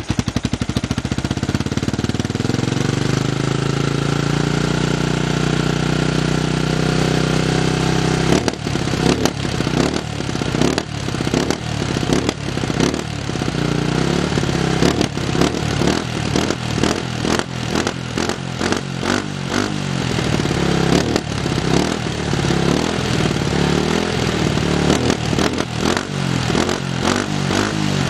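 Fantic Casa 125 motorcycle engine on its stock exhaust, running at a steady, slowly rising speed for the first several seconds. From about eight seconds in, the throttle is blipped over and over in quick, uneven revs.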